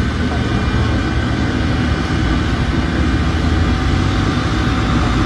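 Private jet's engines running on the ground: a steady low rumble with a faint steady whine above it.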